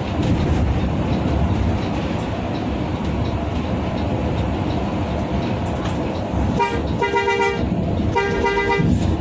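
Bus engine and road noise heard from inside the cabin while driving. About six and a half seconds in, a multi-tone bus horn gives a short toot and a longer blast, then sounds a second blast about a second later.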